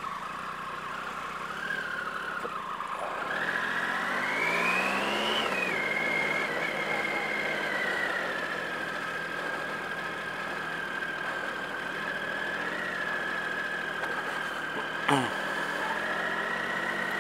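Triumph Sprint ST 1050's three-cylinder engine heard from the rider's seat as the bike pulls away: the engine note rises for about two seconds, drops at a gear change, then holds steady while riding at low speed. One brief sharp knock about fifteen seconds in.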